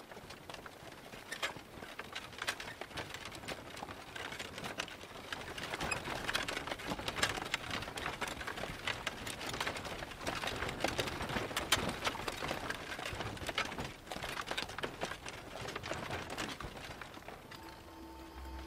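A horse-drawn wagon on the move: uneven clopping of hooves on dry ground and knocking and rattling from the wooden wagon, louder through the middle.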